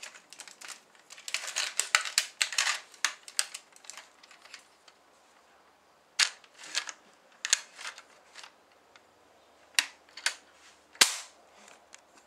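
Plastic clicks and snaps from a Lego brick bolt-action rifle being worked: a quick run of clicks in the first few seconds, then single sharp snaps spaced out, the loudest near the end.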